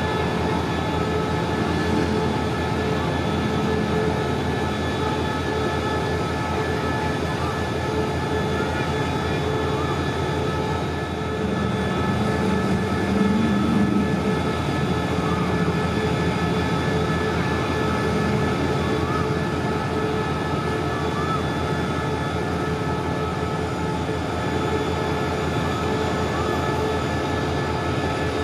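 CRRC diesel-electric locomotive idling steadily, a continuous low engine hum with a steady high whine over it, swelling slightly about twelve seconds in.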